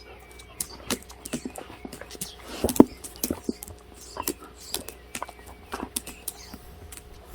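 Pungsan dogs moving about, an irregular run of clicks and taps, with the loudest knock a little before the middle.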